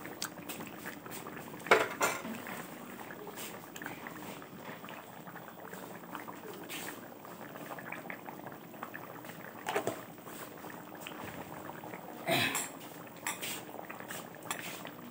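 Tomato fish curry bubbling at a rolling boil in a kadhai, a steady bubbling hiss. A few short sharp knocks cut in, the loudest about two seconds in and about twelve seconds in.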